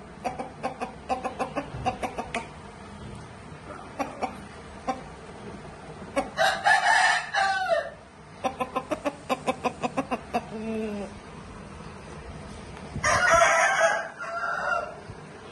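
Rooster calling: runs of quick, evenly spaced clucks, about four a second, and two loud crows, one near the middle and one near the end.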